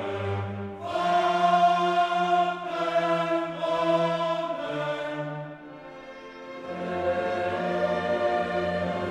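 Background choral music with orchestra: long held sung chords in slow phrases, briefly quieter a little past the middle.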